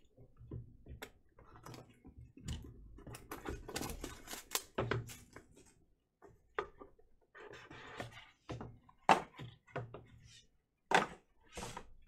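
Handling noise as a trading-card box is opened and a plastic graded-card slab is taken out: cardboard and paper rustling, with many small clicks and knocks of the hard plastic case, two sharp clicks the loudest, about nine and eleven seconds in.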